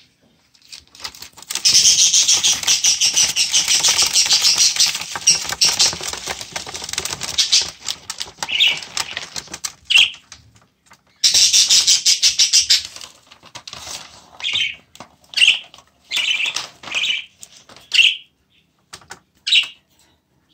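An agitated budgerigar fluttering and flapping its wings in two long bouts of rapid beats, the first lasting several seconds. In between and after, it gives a string of short, sharp chirps.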